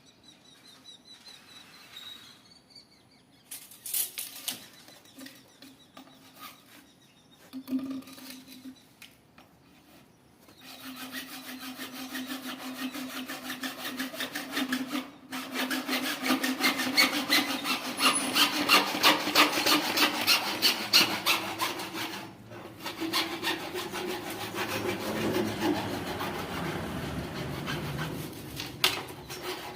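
A few knocks, then about ten seconds in a saw starts cutting with quick, even, rhythmic strokes. It gets louder and keeps going to the end.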